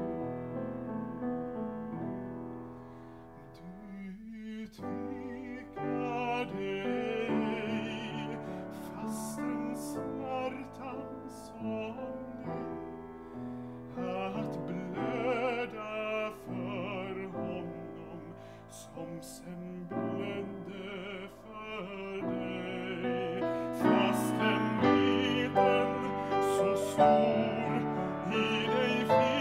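A man singing a solo in a classical style with vibrato, accompanying himself on an upright piano. The music grows louder in the last few seconds.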